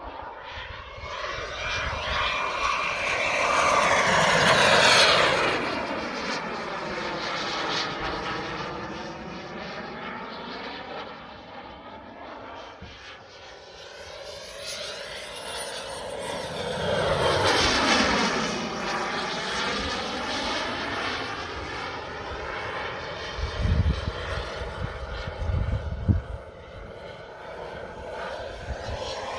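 Gas turbine engine of a 2.5 m radio-controlled F-16 model jet, a rushing whine that swells into two loud passes, about 5 s and 18 s in, its pitch sweeping down after each as the jet goes by and fades. Two short low thumps come near the end.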